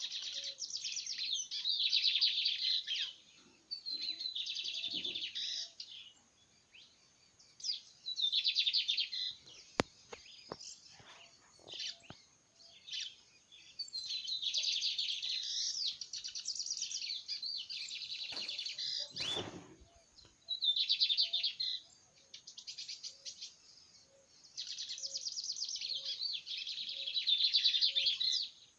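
A cigarrinha songbird singing a rapid, machine-gun-like trilled song in repeated high phrases, each one to three seconds long with short pauses between them.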